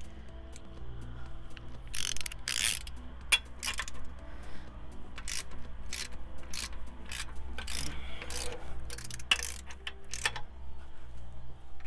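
Hand ratchet wrench clicking in short, irregular runs as the bolts holding the counterbore cutting tool's plate to the engine block deck are undone, over a low steady hum.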